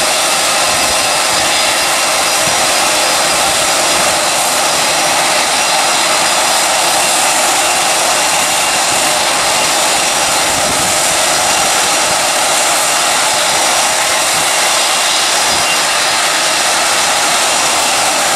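Boeing 777 jet engines during touchdown and rollout: a steady, even rush of jet noise with no distinct tones, unchanging in loudness.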